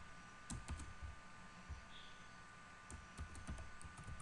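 Computer keyboard keys clicking as text is typed: a few keystrokes in the first second, a pause, then a quicker run of taps in the last second or so.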